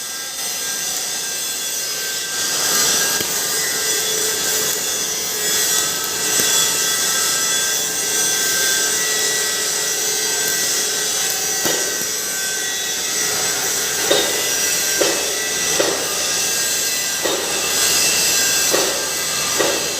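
CO2 (MIG) welding running as a steady, noisy hiss, with several short knocks in the second half.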